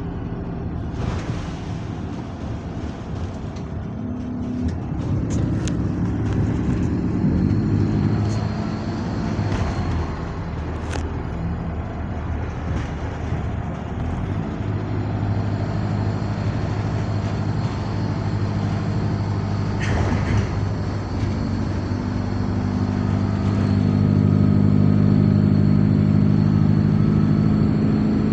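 Bus SLN 37504's engine running as the bus drives, heard from inside the passenger saloon. The engine note shifts in pitch several times and grows louder from about four-fifths of the way through. A few short knocks and rattles come through.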